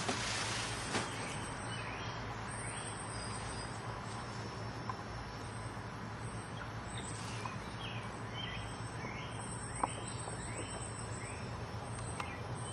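Quiet aviary ambience: a high, thin insect trill that comes and goes, with short faint bird chirps scattered through and a few light clicks over a steady low hum.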